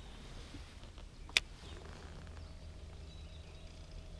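Quiet outdoor background with a steady low rumble, broken once by a single sharp click about a second and a half in.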